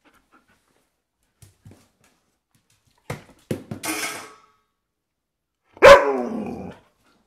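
A German shepherd–husky mix dog vocalizing: a short rough sound with a few sharp noises about three seconds in, then one loud bark about six seconds in that falls in pitch as it trails off.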